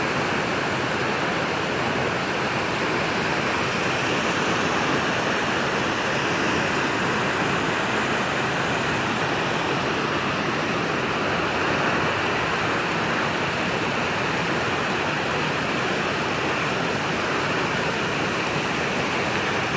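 Steady rushing of a small waterfall and creek cascading over rocks into a pool.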